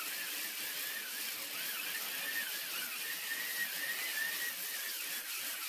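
Electric angle polisher with a sanding disc sanding body filler on sheet metal. Its high motor whine wavers up and down as the disc is pressed and moved over the panel.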